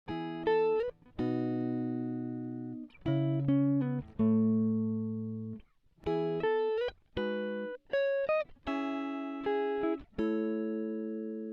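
Background music of plucked guitar chords and single notes, each struck and left to ring out and fade, with short breaks between phrases.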